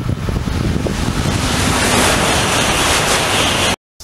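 E926 East i Shinkansen inspection train approaching at speed: a loud rushing noise that grows brighter and stronger over the last two seconds, with wind buffeting the microphone. It cuts off suddenly near the end.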